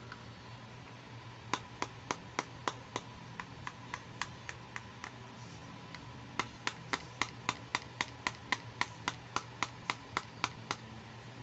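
Pink plastic toy hair dryer clicking as it is worked in the hands: two runs of sharp, evenly spaced clicks, about four a second, with a pause of about a second and a half between them.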